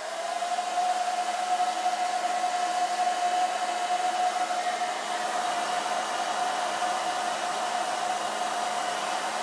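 Handheld hair dryer running steadily, a rush of air with a steady high whine over it, drying a freshly pasted tissue repair on a book page.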